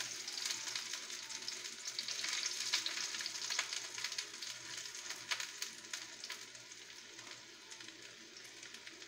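Chopped red onion and garlic sizzling in hot cooking oil in a wok, with many small pops, the sizzle easing off somewhat after the first five seconds.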